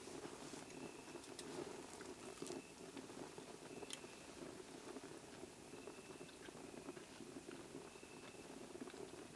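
Small twig fire in a camp stove crackling softly with scattered sharp pops. A night insect chirps faintly at one steady pitch, with short chirps every second or two.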